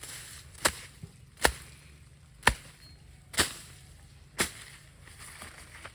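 A hand tool chopping, five short sharp strikes about a second apart.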